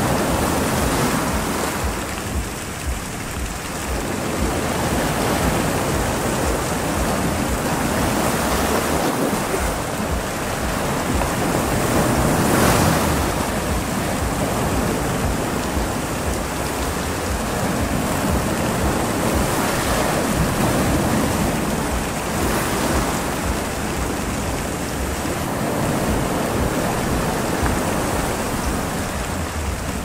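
Steady rush of heavy rain and wind over a stormy sea, with wind buffeting the microphone. It swells briefly about halfway through.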